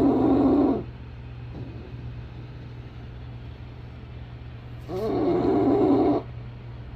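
English bulldog snoring in its sleep: two loud, pitched snores, one at the start and another about five seconds in.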